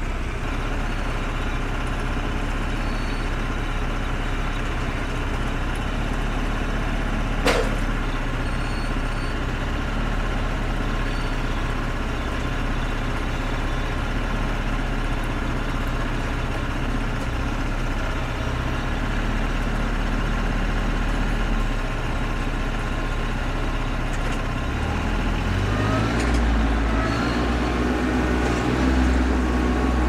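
Compact diesel tractor engine running steadily under front-loader work, with a single sharp clank about seven seconds in. Near the end the engine revs up, its pitch rising and the sound growing louder.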